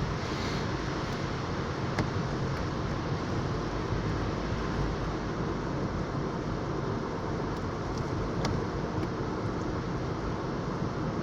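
Steady road and engine noise of a moving car heard from inside the cabin, with a couple of faint clicks.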